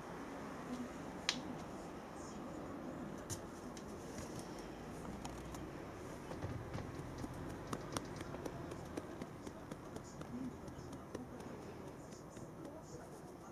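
Faint room noise with scattered light clicks and taps, the sharpest about a second in.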